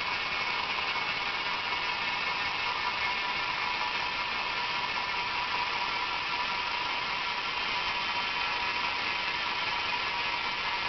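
Small electric gear motor in a New Bright remote-control toy fire engine whirring with a steady whine as it extends the ladder boom out.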